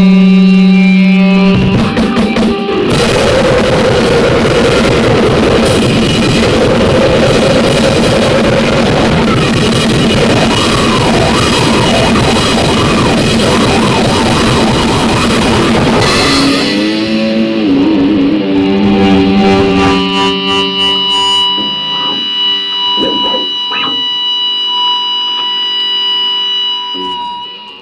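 Loud harsh noise music: a steady buzzing drone breaks about two seconds in into a dense wall of distorted noise, which thins after about sixteen seconds into held tones and scattered clicks before stopping abruptly at the end.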